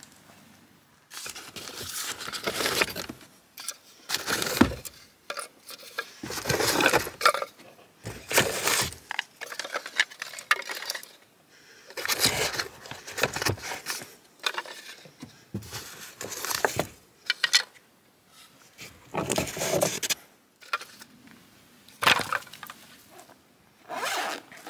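Camping gear being handled and set up: a string of irregular rustles, knocks and clatters with short pauses between them.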